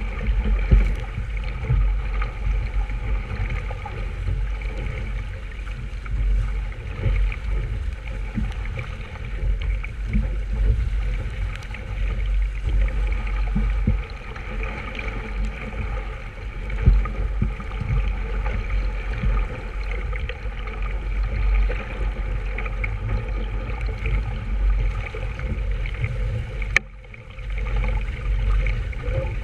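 Water sloshing and gurgling along the hull of a small sailboat under way, with wind gusting on the microphone. A sharp click sounds near the end.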